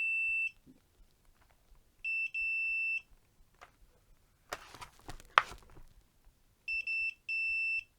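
Digital multimeter's continuity beeper sounding in beeps of a high steady tone as the probes touch the plug's contacts, each beep marking a closed connection. Some beeps stutter briefly and others hold for up to a second. Faint handling clicks fall between the two groups of beeps.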